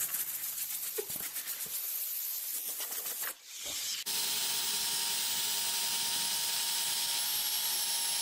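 Rubber eraser wheel on a drill spinning against the car's paint, scrubbing off a pinstripe: a steady rubbing hiss that drops away briefly a little after three seconds in, then carries on more evenly.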